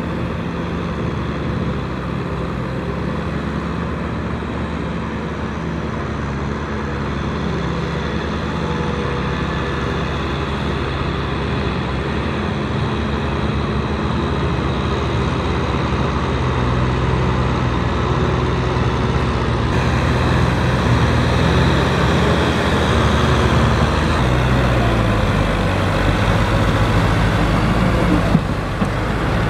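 Farm tractor diesel engines running under load while working wet paddy mud. A steady engine note with churning noise grows slowly louder and shifts pitch a couple of times as the footage moves between tractors.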